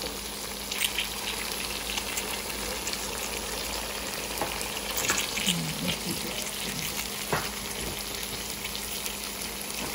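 Mutton karahi sizzling steadily in oil in a nonstick wok as the meat is dry-fried (bhuna) with green chillies, with a few light clicks.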